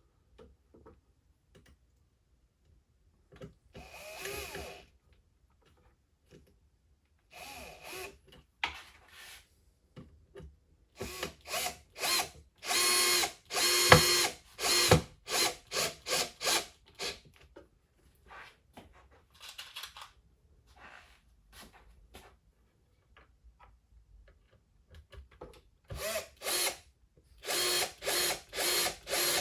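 Power drill driving screws into wood to fasten down a tabletop, run in short bursts of the trigger. There are a few separate runs in the first ten seconds, a dense cluster of runs in the middle, and quick pulses about twice a second near the end.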